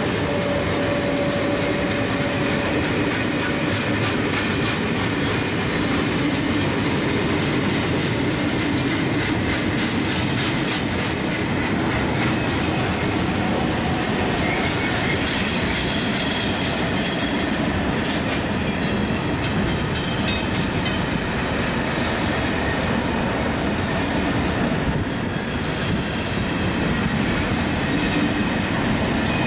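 A long freight train of covered goods wagons rolling past close by. Its wheels click in a steady rhythm over rail joints. Thin high-pitched tones from the wheels come and go in the second half.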